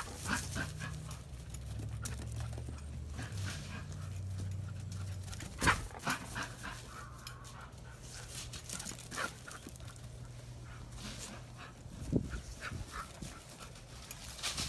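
Dog panting, with scattered short crackles and two sharp knocks, one about six seconds in and another around twelve seconds.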